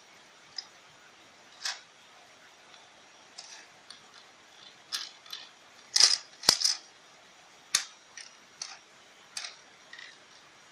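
Irregular sharp clicks and short rustles of handling, about a dozen in all, the loudest two close together about six seconds in.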